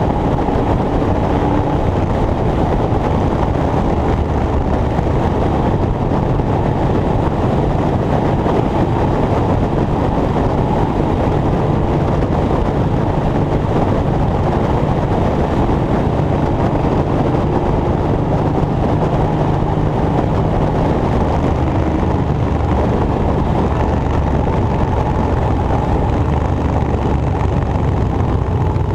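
A large engine running steadily with a loud, even drone, its pitch shifting slightly now and then.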